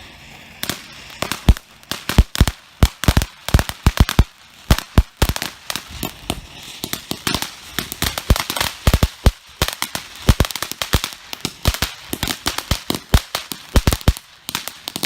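Showtime Cupid's Crush fountain firework crackling: a dense, irregular run of sharp crackles and pops that starts about a second in, over the fountain's hiss.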